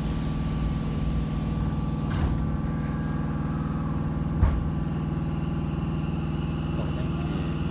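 Steady hum of a Hanshin 5550 series commuter train's onboard equipment heard inside the car while its sliding passenger doors close, with a knock about two seconds in and a louder low thump about four and a half seconds in.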